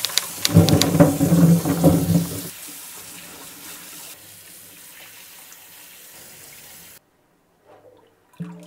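Tap water running into a stainless-steel kitchen sink, splashing loudly for the first two seconds or so as fruit is rinsed under the stream, then running more steadily and softly. It cuts off suddenly about seven seconds in.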